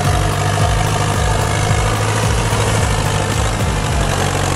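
Forestry tractor's diesel engine running steadily as it pulls a loaded log trailer through deep mud.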